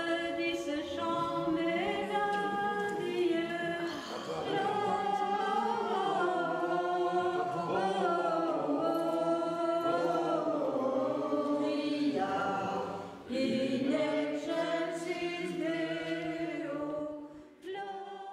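A choir singing, several voices holding long notes together, with a short break about two-thirds of the way through and fading out near the end.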